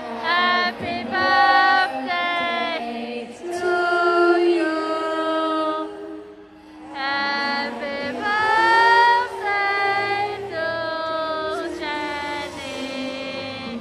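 Singing voices holding long, clear notes in short phrases with brief breaks between them.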